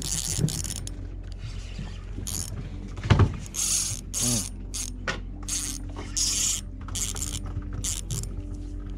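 Ultralight spinning reel being cranked, its drag buzzing in short uneven bursts as a hooked tongkol (mackerel tuna) pulls line against it. A single heavier knock sounds about three seconds in.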